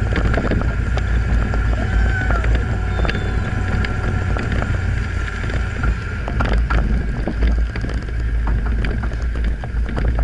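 Lifted Suzuki Sidekick driving over packed snow: a steady engine and drivetrain sound under a heavy low rumble, with scattered clicks and rattles. The camera is mounted outside the vehicle, so wind on the microphone adds to the rumble.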